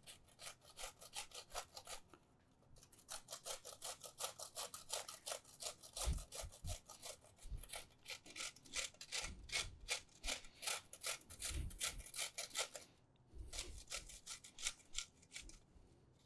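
Frozen almond streusel dough being grated on a handheld metal cheese grater: a fast run of faint rasping strokes, broken by two brief pauses.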